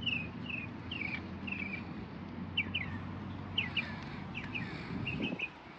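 A bird chirping over and over in short, high, falling notes, a couple of times a second, over a steady low hum.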